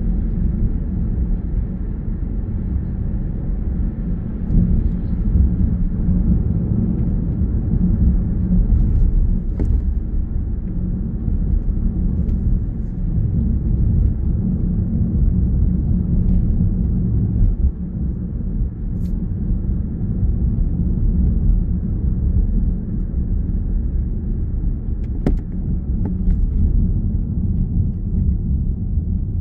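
Steady low rumble of a car's engine and tyres on the road, heard from inside the cabin while driving, with a few faint clicks.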